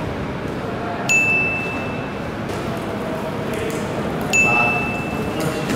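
Steady background hubbub, with two sudden high ringing tones about three seconds apart, each ringing on for a second or more.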